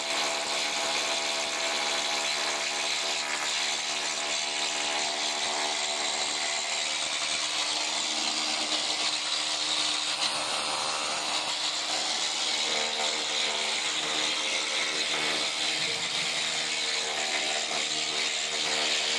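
Pneumatic needle scaler hammering continuously on a steel ship's deck to strip old paint and rust: a dense, steady buzzing rattle. Its pitch shifts slightly about two-thirds of the way through.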